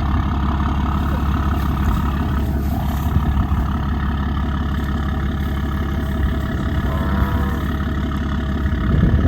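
A vehicle engine running steadily at a low, even pitch.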